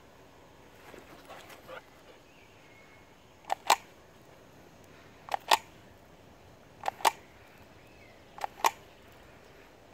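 A camera shutter firing four times, each shot a quick double click, about every one and a half seconds.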